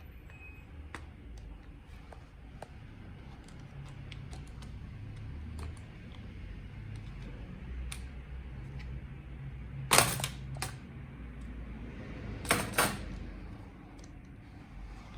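Small plastic clicks and snaps from a Lenovo ThinkPad T440s laptop being worked on, over a low steady hum. The loudest are two sharp clicks about ten seconds in and a quick pair of clacks a couple of seconds later.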